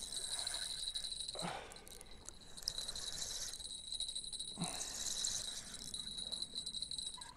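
Spinning reel being cranked to retrieve line: its gears give a steady, high whine in spells of a second or so. Short falling swishes come about every three seconds.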